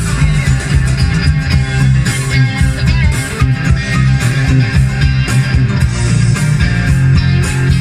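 Music with guitar and strong bass playing loudly over a BMW M6 Gran Coupe's Bang & Olufsen audio system, fitted with Focal front mids and tweeters, heard inside the car's cabin through a mobile phone recording.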